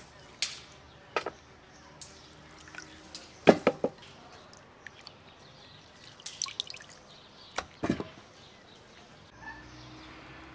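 Wet pieces of raw meat lifted dripping from a bowl of water and dropped one by one into an empty aluminium pot: a handful of separate wet knocks, three in quick succession about three and a half seconds in, with water dripping between them.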